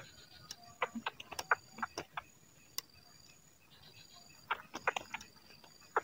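A white-breasted waterhen caught in a hanging snare thrashing and flapping in dry grass: clusters of quick rustling snaps about a second in and again near five seconds. Insects chirp steadily behind it in high-pitched, evenly broken trills.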